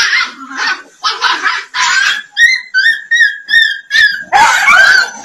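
Dogs barking and snarling, with a run of about six short, high yelps in the middle.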